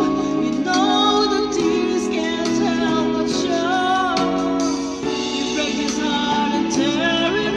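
A woman singing a slow song into a handheld microphone, holding long wavering notes over backing music.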